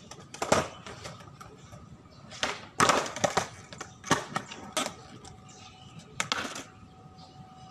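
Skateboard tail popping and the board clattering down on the hard court during varial kickflip attempts: a string of sharp cracks and slaps, bunched together about three seconds in, with wheels rolling in between.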